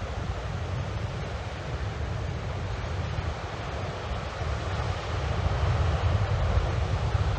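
Typhoon wind buffeting the microphone as a heavy low rumble over a steady rush of rough, storm-driven water, growing somewhat louder about five seconds in.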